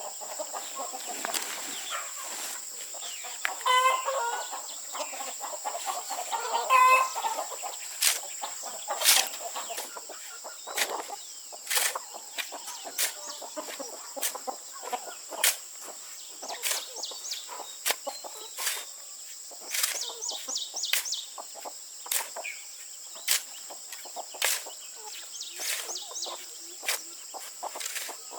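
Chickens clucking and calling, with short high peeps, over a run of sharp knocks or taps and a steady high-pitched whine.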